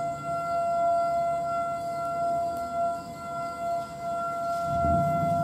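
Distant Federal Signal outdoor warning sirens sounding a steady alert tone, several held pitches overlapping and swelling slightly in level. A low rumble comes in near the end.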